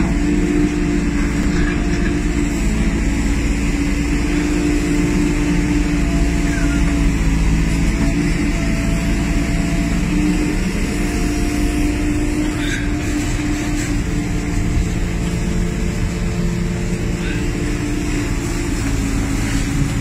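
Heavy diesel engine running steadily, its pitch shifting slightly now and then as the revs change.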